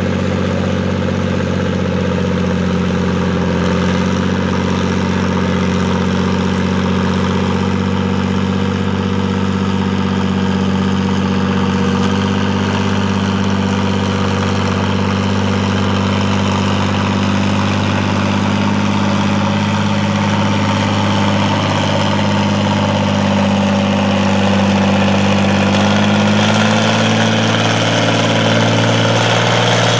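International Harvester 766 tractor's diesel engine under heavy load, pulling a weight-transfer sled at a steady crawl. The engine note holds even, then rises in pitch and gets louder over the last few seconds.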